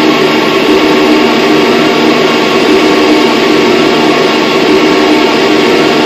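Loud live drone-noise music: a dense, unbroken wall of noise with a few held low tones running through it.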